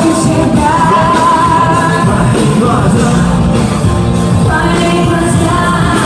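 Live pop song played loud over a sound system: a band with a steady beat under a sung or held melody line.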